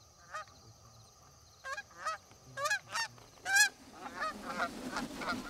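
A flock of Canada geese honking as it comes in to land. There are a few separate honks at first, the loudest about three and a half seconds in, then many overlapping honks from about four seconds on.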